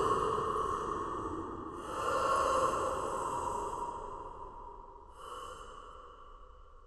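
Homemade cartoon alligator sound effect: breathy hisses, one after another, each fading away. One is already under way and dying down, the next starts about two seconds in, and a weaker one comes about five seconds in.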